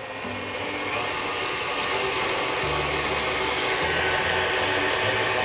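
KitchenAid Artisan stand mixer running, its beater working cream cheese and lemon juice in the stainless steel bowl to soften it. The motor's steady whir grows louder over the first second, then holds.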